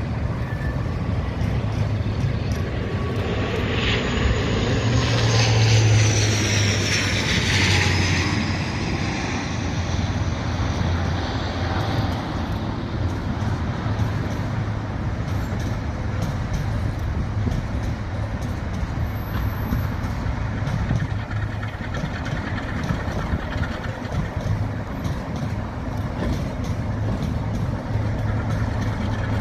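Class 47 diesel locomotive's Sulzer V12 engine running with a steady low hum as it pulls a train slowly away. A louder spell of high screeching and rumbling from rail traffic comes about four seconds in and fades after about nine seconds.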